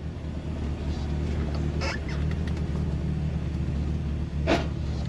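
Toyota Corolla AE86's engine running steadily as the car drives slowly, heard from inside the cabin, with a couple of short clicks or rattles about two seconds in and near the end.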